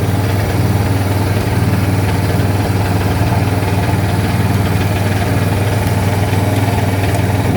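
Landmaster's engine running steadily at a high idle, set way up to supply charge for jump-starting another machine's dead battery.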